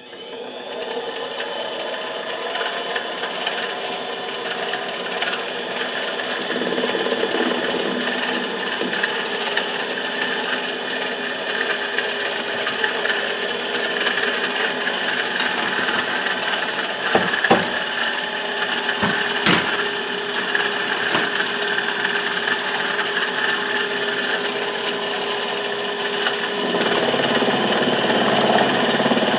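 Benchtop mini lathe switched on and running, its motor and gears whining steadily, while a cutting tool scrapes against a spinning titanium bar. There are a couple of short ticks partway through.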